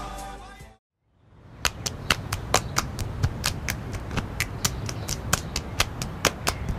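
Music fades out within the first second; after a brief silence, a fast, irregular run of sharp clicks, about three or four a second, sounds over a steady hiss.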